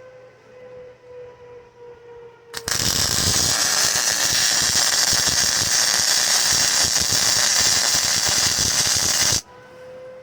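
Electric arc welding on steel plate: a loud, steady crackling hiss that starts suddenly about two and a half seconds in and cuts off about seven seconds later. A steady hum runs before and after the weld.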